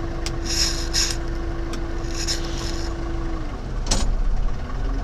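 Kubota tractor engine running with a low rumble and a steady whine that falls away about three and a half seconds in, followed by a single clunk.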